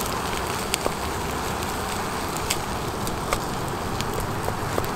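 Stir-fry sizzling in a frying pan as rice is stirred in: a steady hiss with scattered sharp crackles.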